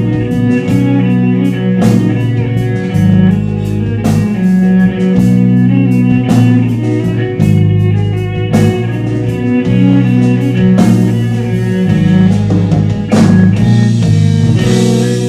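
Live rock band playing an instrumental passage: electric guitar, bass guitar and violin over a drum kit, with regular drum and cymbal hits. Cymbals wash loudly near the end.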